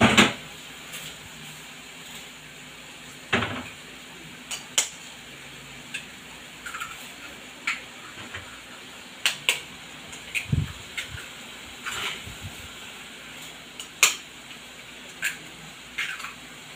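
Metal pots, lids and kitchen utensils clinking and clattering in irregular single clinks, with a louder clank right at the start and a dull thump about ten seconds in.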